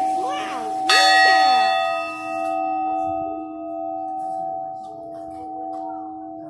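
Brass bell of an animated Christmas clock tower struck once about a second in, its ring fading slowly.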